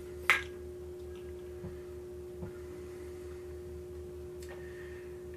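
A sharp click shortly after the start, then a few faint ticks, as hands lead thread through the upper guides of a vintage Singer treadle sewing machine, over a steady hum.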